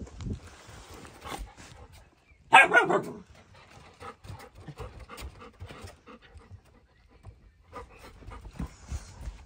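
A golden retriever and a malamute puppy play-fighting, with panting and the scuffle of paws. One short, loud bark about two and a half seconds in.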